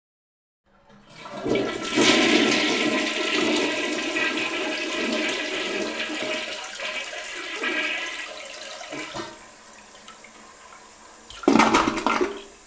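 Toilet flushing: the water rushes loudly for several seconds, then fades to a quieter hiss, and a second short loud rush comes near the end.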